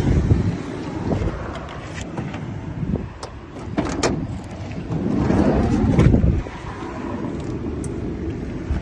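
Low vehicle rumble with a few sharp clicks, swelling louder from about five seconds in and dropping away suddenly just after six seconds.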